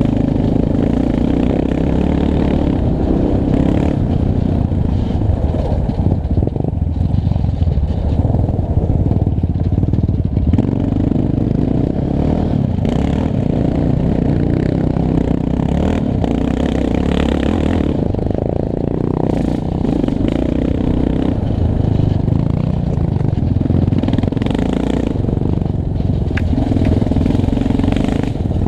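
Yamaha Raptor 700 quad's single-cylinder four-stroke engine running under load on a rough dirt trail, with revs rising and falling and occasional clatter from the rough ground.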